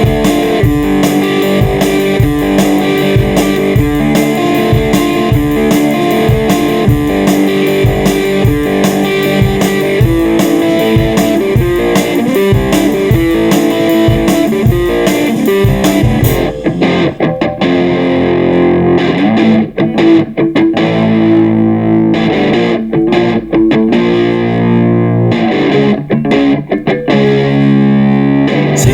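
Instrumental break of a rock song: distorted electric guitar over a steady drum beat. About two-thirds of the way through, the drums drop out and the guitar carries on alone with held notes.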